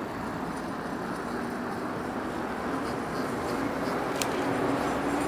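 Steady street-traffic and riding noise from the e-bike, with a low vehicle hum that slowly rises and grows louder toward the end. There is a short click about four seconds in.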